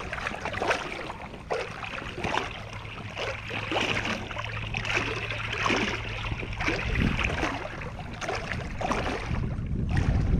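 Water splashing and lapping close to the microphone in many small irregular slaps. About two-thirds of the way in, gusts of wind rumble on the microphone.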